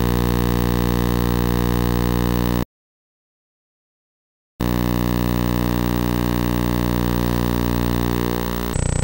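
Steady electrical buzz from the videotape transfer, made of many evenly spaced tones at one pitch. It cuts to dead silence for about two seconds and then comes back. Near the end it changes to a harsher buzz with a thin high whine.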